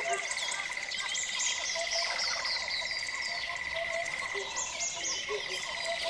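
Forest ambience of many birds calling in quick, falling high chirps over a steady one-pitch insect trill. Short, low, frog-like calls recur through it.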